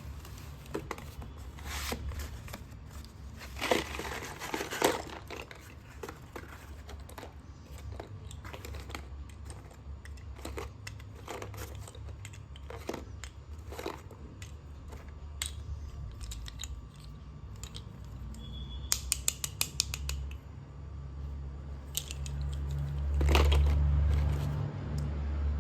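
Slate pencils clicking and crunching close to the microphone: irregular sharp clicks and snaps, with a quick run of about eight clicks about two-thirds of the way through, over a steady low hum.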